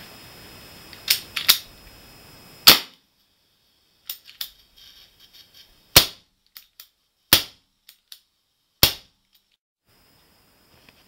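Hahn 45 CO2 BB revolver test-fired after its rebuild: six sharp pops, three in quick succession in the first three seconds and then three more spaced about a second and a half apart, with small clicks of the single-action hammer being cocked between the later shots.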